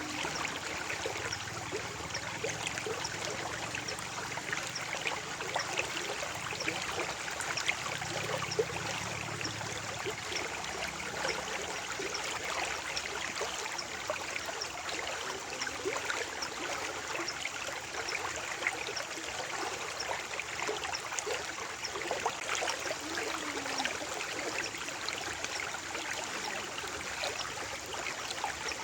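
Water flowing steadily in a stream, a continuous babbling trickle full of small splashes.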